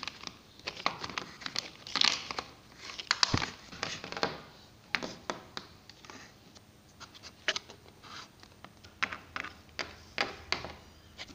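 Small plastic Littlest Pet Shop figurines being handled and moved across a hard tabletop and against a plastic toy house: scattered light taps, clicks and scrapes.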